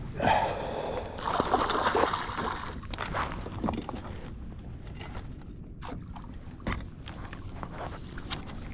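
Water splashing and sloshing beside a kayak as a hooked fish is brought to the surface, for about the first three seconds, followed by scattered light clicks and knocks.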